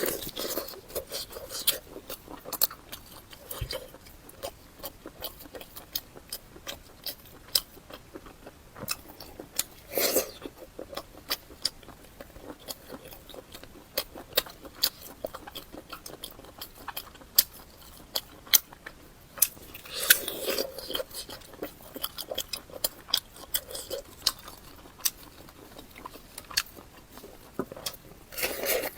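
Close-miked chewing of fatty pork: a steady run of wet mouth clicks and smacks, with two longer, louder moments about a third and two thirds of the way through.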